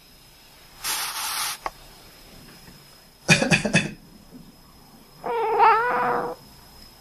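A person sneezes in a quick sharp burst, and a house cat answers with one long, wavering meow about two seconds later. A short hissing burst comes about a second in.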